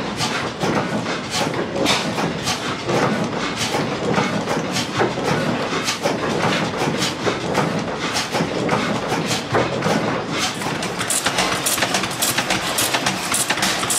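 Old stationary engines running with a steady, rhythmic mechanical clatter. From about ten seconds in, the clicks turn sharper and brighter as a smaller International Harvester flywheel engine runs.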